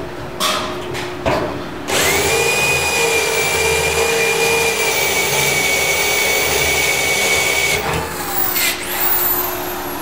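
Corded electric drill cutting a hole through lubricated aluminium tank sheet: a couple of short bursts, then a steady cut with a whine for about six seconds. The motor winds down with a falling whine after it stops.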